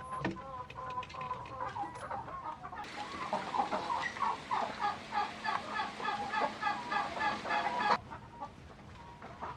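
Chickens clucking, with a dense run of many overlapping short calls from about three to eight seconds in that begins and ends abruptly.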